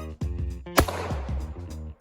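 Background music with pitched instruments, a steady bass, and a sharp hit on the beat about a second in.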